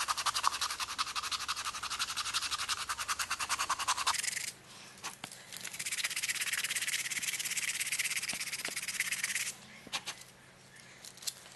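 Coarse P80 sandpaper rubbed by hand along a wooden spoon's handle: a fast scratchy rasp of about ten strokes a second for roughly four seconds, then after a short pause a steadier rubbing for about four more seconds, which stops with a few faint knocks near the end.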